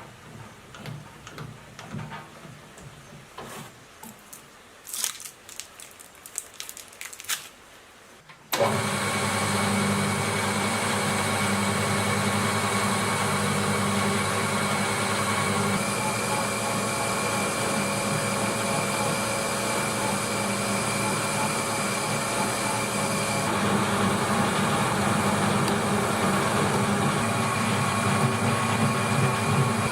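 Metal lathe switched on about eight seconds in, its electric motor and gearing then running steadily with a constant hum and whine, after a few light handling clicks.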